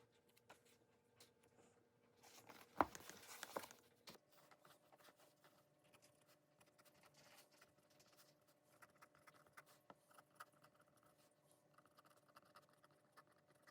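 Faint small handling sounds in a quiet room: scattered light ticks and taps throughout, with a louder rustling scrape about three seconds in that lasts a second or so.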